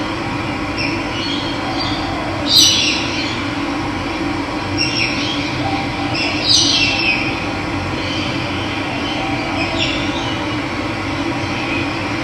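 Steady rushing of running water, with wild birds calling over it: several short calls that slide downward in pitch, the loudest about two and a half seconds in.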